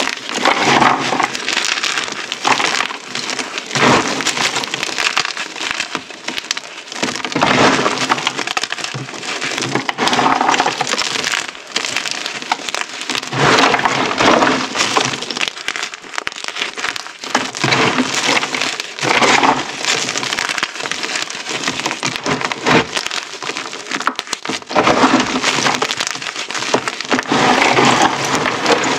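Hard, crunchy chunks of reformed gym chalk crunching and crumbling as bare hands squeeze, grind and rake through a pile of broken pieces: dense crackling that swells in irregular surges with each squeeze.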